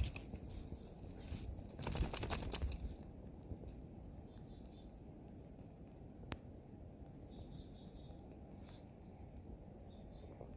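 Footsteps crunching through wet snow, loudest about two seconds in, stopping after about three seconds. Faint high chirps follow over the quieter remainder.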